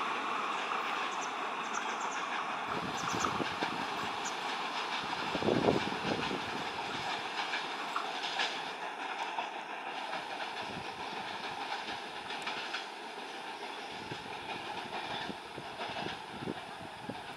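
Passenger train coaches rolling away, their wheels clattering in irregular knocks over rail joints and pointwork, the loudest knock about five seconds in. The rumble fades steadily as the rear of the train recedes.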